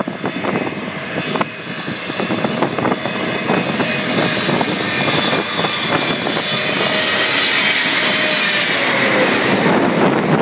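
Boeing 777-300ER's twin GE90 turbofan engines growing steadily louder as the airliner approaches low and passes overhead on final approach. A high whine builds over the last few seconds, and one tone in it dips slightly in pitch as the jet goes over.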